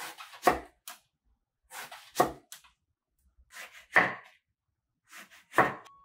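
Kitchen knife slicing an eggplant into rounds on a wooden cutting board: four slow, evenly paced cuts, each a short crunch through the flesh ending in a knock of the blade on the board.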